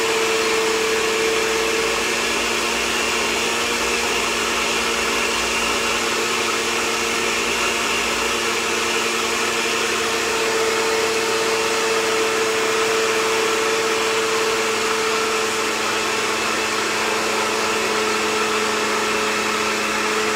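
Countertop blender motor running steadily at a constant pitch, pureeing hot soup until smooth.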